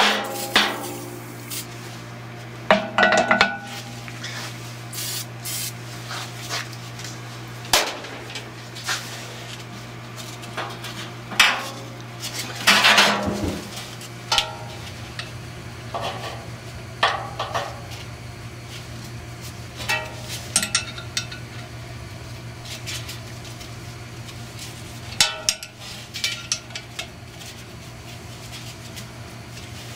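Scattered metal clinks and knocks as a puller and its long forcing bolt are fitted to the hub of a squirrel cage blower wheel, over a steady low hum.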